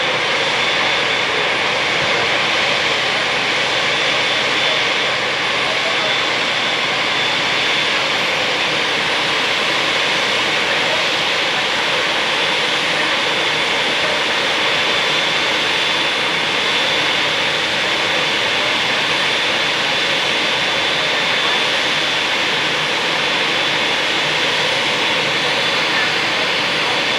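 Aircraft turbine engines running steadily, a constant rush of engine noise with a thin high-pitched whine over it.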